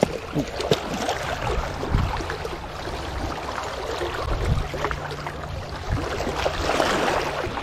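Small waves lapping and splashing against shoreline rocks, with a few small clicks and a low steady hum underneath.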